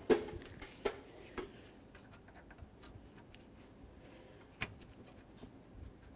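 Scattered light clicks and taps of small parts being handled and fitted onto a new radiator by gloved hands. There are three in the first second and a half, the first the loudest, and another a little past halfway.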